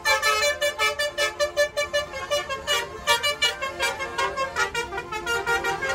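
Musical multi-tone bus air horn ("telolet" horn) playing a quick tune of short pitched notes, about five or six a second.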